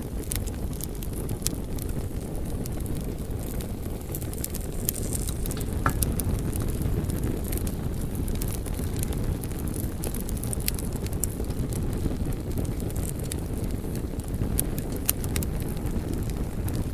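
Wood fire burning in a fireplace: a steady low rush of flame with scattered sharp crackles and pops from the burning wood, one louder pop about six seconds in.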